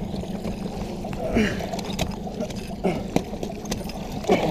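Muffled rubbing and knocking of a wrist-worn action camera pressed against clothing, over a steady low hum, with a few short strained vocal sounds.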